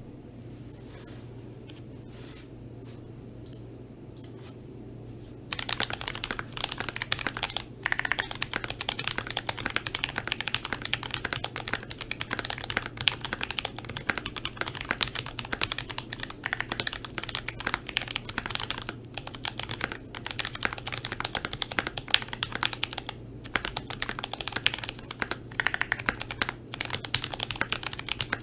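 Fast, continuous typing on a GMMK Pro mechanical keyboard with Penguin tactile switches lubed with Krytox 205g0, in a polycarbonate plate with no plate foam. A few faint key taps come first, then dense, rapid clacking starts about five seconds in. A low steady hum sits underneath.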